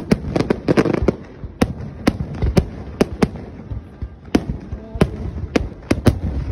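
Aerial fireworks shells launching and bursting in an irregular string of sharp booms, with a dense cluster in the first second followed by more spaced-out bangs.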